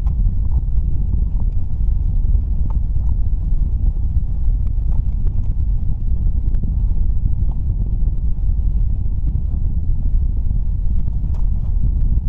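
Strong wind buffeting the microphone: a loud, steady low rumble, with a few faint clicks.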